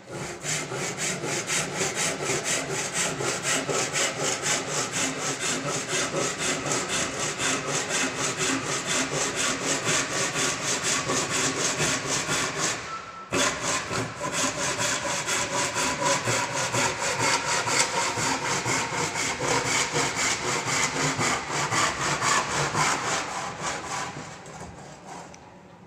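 Hand saw cutting through a piece of timber clamped in a vice, in steady back-and-forth strokes about two a second. There is a short pause about halfway through, and the strokes fade away near the end as the cut finishes.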